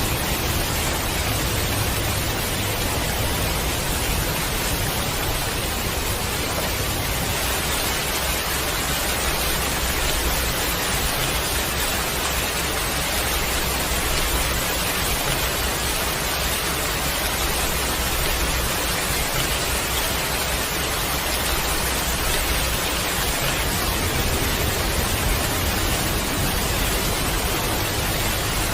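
Heavy rain falling steadily, a dense even hiss with a low rumble underneath.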